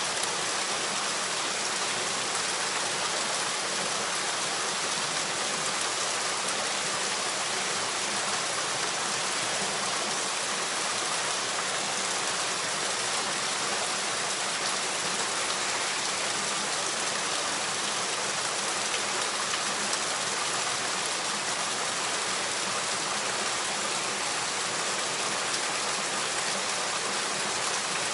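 Steady, fairly heavy rain falling on a stream pool, an even hiss of drops on the water, with the rush of the stream running over rocks beneath it.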